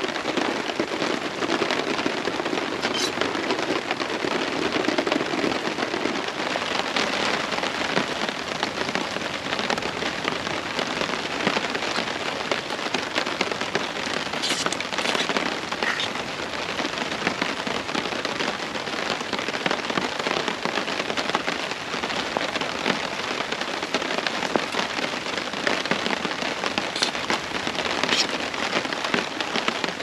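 Heavy rain falling steadily on a tarp shelter overhead, with a few short clicks here and there.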